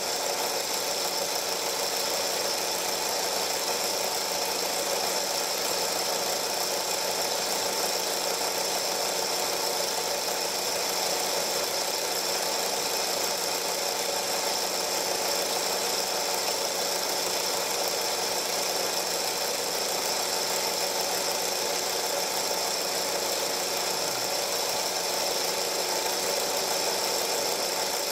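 Film projector running with a steady mechanical whir and hum that never changes in level.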